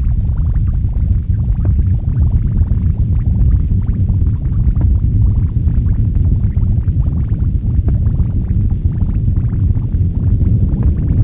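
Noise music: a loud, dense low rumble with rapid crackling above it, steady throughout, with no beat or melody.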